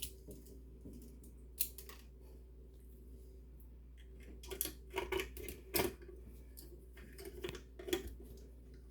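Scattered light clicks and taps of small tools and parts being handled while wiring up a garbage disposal, in a small cluster a little past the middle and again near the end.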